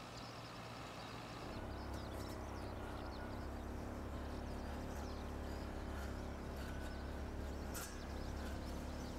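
A tractor engine running faintly, then, about a second and a half in, a brush cutter's engine running steadily as its spinning head cuts through grass and weeds, with faint scattered ticks of cut debris.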